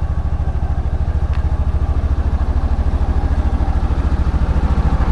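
Yamaha Rhino 700's single-cylinder four-stroke engine idling: a steady, rapid low pulsing of even firing strokes, with a faint click about a second in.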